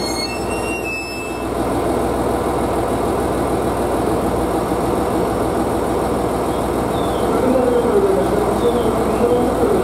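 Diesel engines of JR East GV-E400 diesel-electric railcars running steadily at a standstill, with the wheel squeal of the arriving railcar dying away about a second in as it stops. A wavering tone joins near the end.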